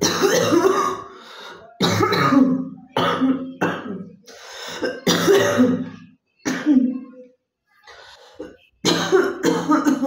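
A woman coughing over and over in separate loud bursts with short pauses between them: a real chesty cough that brings up phlegm.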